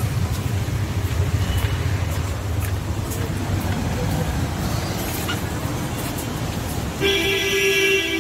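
Steady low rumble of street traffic, then a vehicle horn blares near the end and is held.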